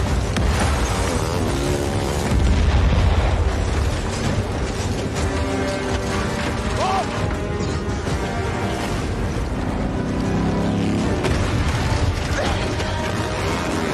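Action-film soundtrack mix: car engines revving hard and landmine explosions, with the loudest deep boom about two to three seconds in, over a music score.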